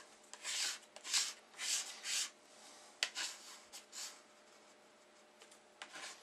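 A plastic key card scraped across paper that is glued to a wooden board, smoothing it flat and pressing out air bubbles. It begins with four quick scraping strokes about half a second apart, then slows to a few lighter strokes and small ticks, and is quieter in the second half.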